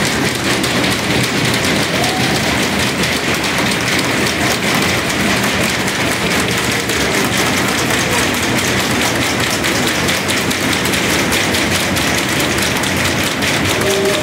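A roomful of people clapping and making noise together in a continuous, dense din.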